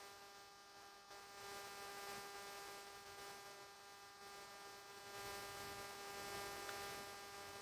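Faint, steady electrical hum with a constant tone, over low room hiss.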